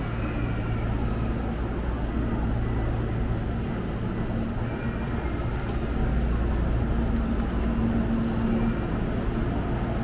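Hankyu 1300 series electric train standing at the platform, its onboard equipment giving a steady low electrical hum that grows a little louder about six seconds in, over faint platform voices.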